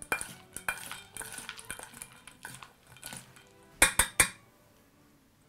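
Spoon scraping and clinking against a stainless steel bowl while stirring a corn and peanut salad, with a quick run of three sharper clinks about four seconds in.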